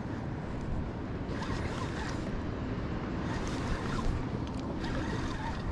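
Wind buffeting the microphone over a steady wash of sea noise.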